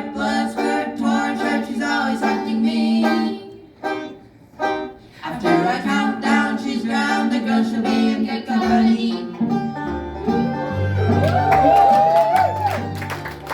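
Bluegrass-style string band with a man singing over banjo and guitar. About two-thirds of the way through the singing stops and an instrumental break takes over, with a deep bass line and sliding bowed-string notes.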